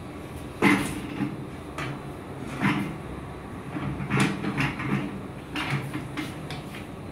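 Metal payoff pole of a cable cutting machine's payoff stand clanking in its mounting as it is worked by hand: irregular metallic knocks, the loudest about half a second in.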